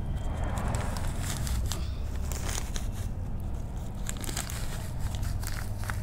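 Black polythene nursery bag crinkling and crackling in irregular bursts as it is pulled and peeled off a plant's root ball by hand, over a steady low hum.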